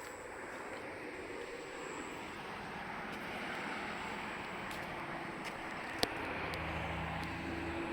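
A vehicle approaching, its steady noise building gradually, with a low engine hum joining about six and a half seconds in. A single sharp click about six seconds in.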